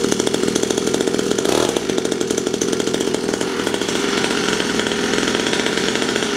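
Small two-stroke engine of an SYX Moto kids' dirt bike running at a steady idle through its exhaust, with its choke just turned off after a cold pull start.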